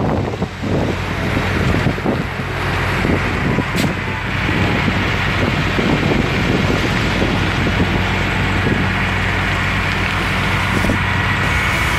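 Wind buffeting the microphone over a steady low engine hum.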